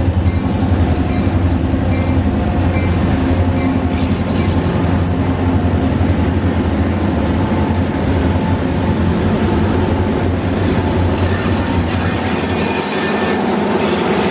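Freight train of diesel locomotives and covered hopper cars running by, with a steady low diesel engine drone that eases near the end.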